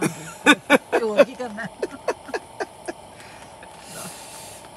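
A person's voice in short pitched bursts, then a run of quick, evenly spaced syllables that trail off. A soft hiss follows about four seconds in.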